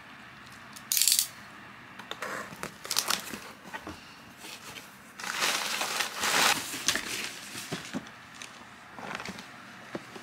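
A cardboard shipping box being handled and opened: irregular scraping, rustling and clicks of cardboard and packing, with a short sharp rip about a second in and a longer stretch of rustling about five to seven seconds in.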